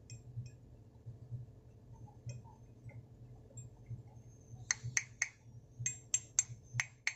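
Lid of a Kantai Zippo-style lighter being flicked open and snapped shut over and over: a run of about eight sharp metallic clicks, each with a brief ring, starting a little past halfway, after a few faint ticks of handling.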